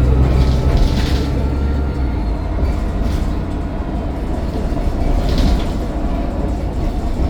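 Mercedes-Benz Citaro bus heard from on board: a deep diesel engine drone that eases off about two seconds in, then steady road rumble and body rattle as the bus runs, with a thin turbocharger whine.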